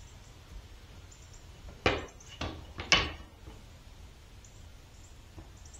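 Three sharp wooden knocks, a second apart, as wooden pieces are set down or bumped on a workbench. The first and last are the loudest.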